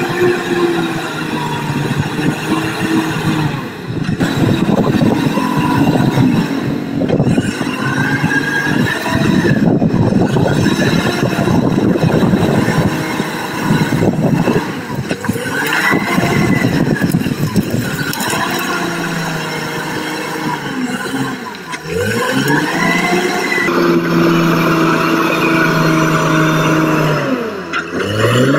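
Caterpillar crawler bulldozer's diesel engine running under load as it pushes earth, its pitch wavering. Twice, about two-thirds of the way through and again near the end, the engine's pitch drops sharply and then climbs back.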